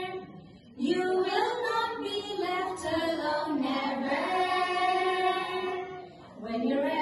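Voices singing a slow children's devotional song, holding long notes that slide between pitches, with a brief break about half a second in and another near the end.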